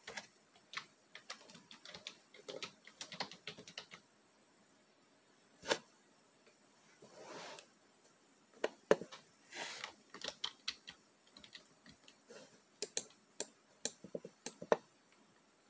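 Computer keyboard typing in several short bursts of clicks, with pauses and a couple of soft noises in between.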